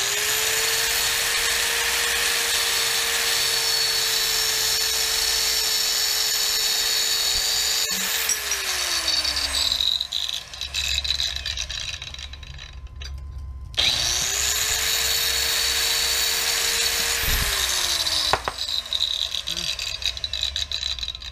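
DeWalt DWC860W hand-held wet/dry tile saw with a diamond blade, running at full speed as it cuts through glass tile. About eight seconds in it is switched off and spins down with a falling whine. It is started again a few seconds later, runs briefly and spins down once more.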